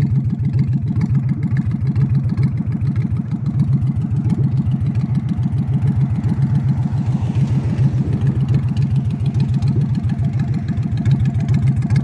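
An engine idling steadily: a low hum with a fast, even pulse.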